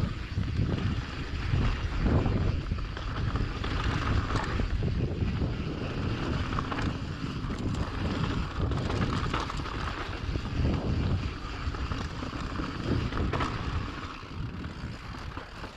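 Wind buffeting a GoPro's microphone during a mountain-bike ride, a gusting rush with scattered small clicks and rattles from the bike.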